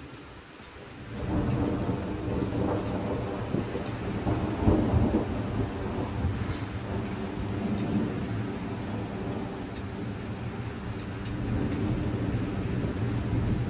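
Rolling thunder over steady rain: a low rumble breaks in suddenly about a second in, swells to its loudest near the middle, then rolls on without dying away.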